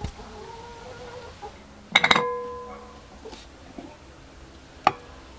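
Glass bowl clinking and ringing as it is set down and knocked: a quick cluster of sharp clinks about two seconds in, with a ring that fades over about a second, and one more sharp clink near the end.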